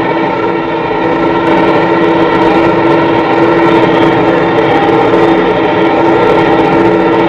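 Diesel engine of heavy machinery, most likely the bogged JCB backhoe loader, running steadily with a loud, even drone and a strong steady tone.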